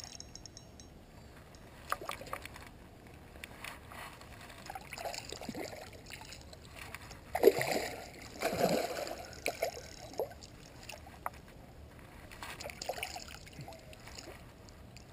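Water splashing and sloshing in the shallows as a hooked grass carp thrashes at the bank while a landing net is worked in the water. The splashes come unevenly, heaviest about halfway through.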